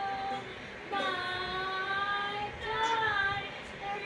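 A young girl singing, holding long drawn-out notes: one ends just after the start, a longer one begins about a second in, and a shorter wavering one follows near the three-second mark.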